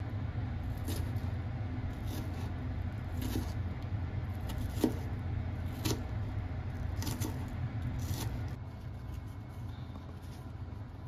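Kitchen knife mincing an onion on a plastic cutting board: sharp chopping strokes every second or so, often in quick pairs, thinning out after about eight seconds. A steady low rumble runs underneath.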